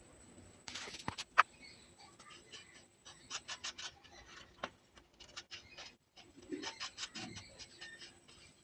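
Handling noise: scattered clicks and short scratchy rubbing as wires and a small circuit board are handled, with one sharp click about one and a half seconds in.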